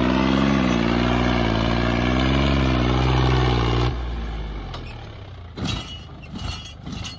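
John Deere 5039 tractor's three-cylinder diesel engine working hard while the tractor holds a wheelie on its rear wheels, its pitch wavering up and down. About four seconds in the sound drops off sharply and the engine is fainter, with a few short knocks and rattles.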